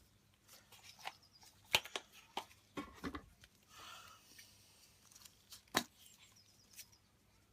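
Small parts and tools being handled on a workbench: scattered faint clicks and knocks, with a short rustle about four seconds in.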